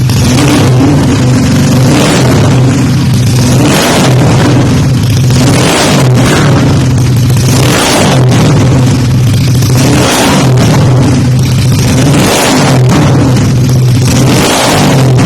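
Yamaha Mio scooter's single-cylinder four-stroke engine through an aftermarket tuned exhaust, running loud and revved in repeated blips, about one every two seconds.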